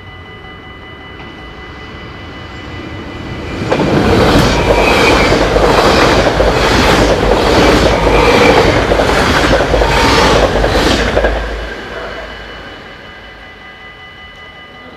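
A train passing through a Dutch level crossing: it builds up over a couple of seconds, then its wheels rumble and clack over the rails loudly for about eight seconds, a regular clack about twice a second, before fading away. The crossing's warning bell rings steadily throughout.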